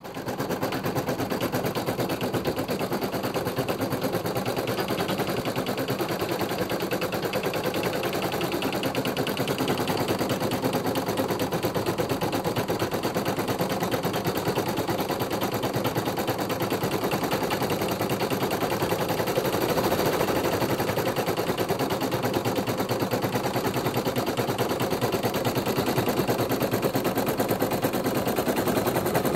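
Embroidery machine stitching at speed: the needle bar punching thread through fabric in a rapid, even clatter that runs on without a break.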